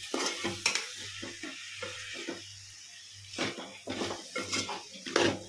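Metal spoon clinking and scraping against a cooking pot in a series of short, uneven knocks, over a steady low hum.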